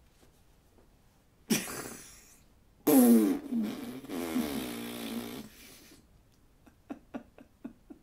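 A man blowing a raspberry through his lips: a short buzz about one and a half seconds in, then a louder, wavering buzz lasting about two and a half seconds. A few short clicks follow near the end.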